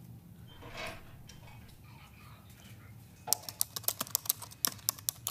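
Quick, irregular keystrokes on a laptop keyboard, starting about three seconds in.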